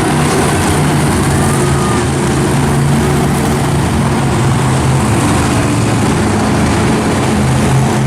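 Monster truck engine running loud and steady, its pitch holding with small rises and falls.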